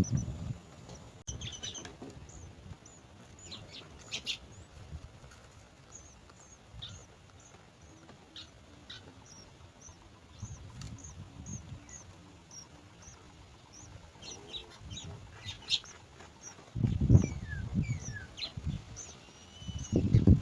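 Nestling birds cheeping in the nest with short, high chirps repeated throughout. Low rustling thumps of wings flapping at the nest come in the last few seconds.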